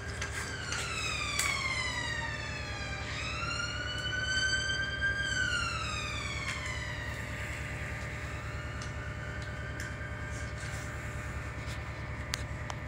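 Emergency vehicle siren wailing, its pitch rising and falling slowly and fading after about eight seconds, over a steady low hum.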